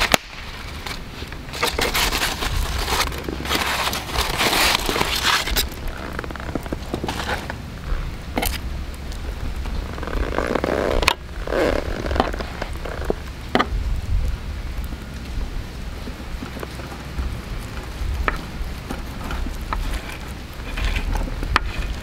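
Aluminium foil crinkling as it is pulled away from a roast beef, then a knife and carving fork scraping and clicking against a wooden cutting board as the meat is carved. A steady low rumble sits underneath.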